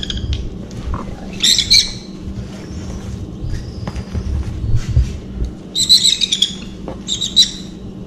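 Baby sun conures calling in short clusters of high chirps, about a second and a half in, again around six seconds and once more near the end, over low bumps from the birds being handled in their cardboard box.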